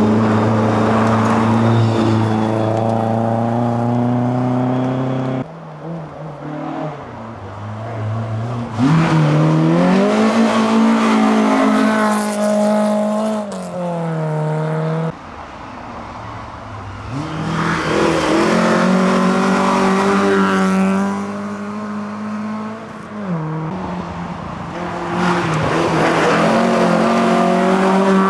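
Historic rally cars driving past one after another on a snow stage, each engine revving hard, its pitch climbing and then dropping as the driver lifts off. The sound cuts off abruptly twice as one car gives way to the next.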